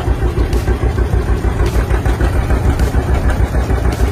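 A big farm tractor's engine idling with a steady, even low throb, with a faint tick about once a second.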